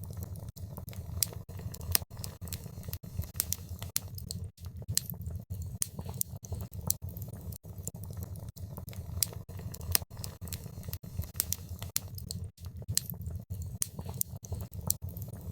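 Wood fire burning in a fireplace: irregular sharp crackles and pops, several a second, over a steady low rumble.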